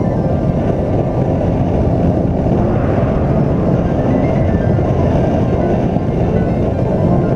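Background music, with short stepping melody notes over a dense, steady low sound; the notes thin out early and pick up again about halfway through.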